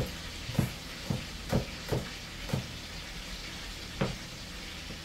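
Knife chopping green pepper on a cutting board: about seven uneven chops, most in the first half and one more about four seconds in, over a steady hiss.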